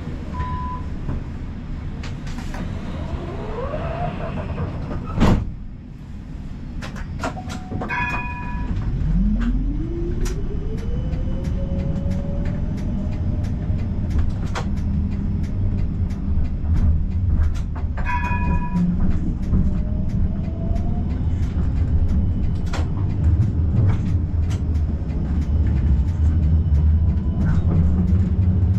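Combino tram running: steady low rumble from wheels and running gear, with the electric traction motor's whine rising in pitch as it speeds up, about nine to thirteen seconds in. Wheels click over rail joints throughout. A single loud knock comes about five seconds in, and a short chiming signal sounds twice, near eight and eighteen seconds.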